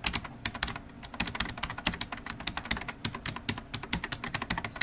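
Computer keyboard typing sound effect: rapid, irregular key clicks, several a second, laid under on-screen text being typed out.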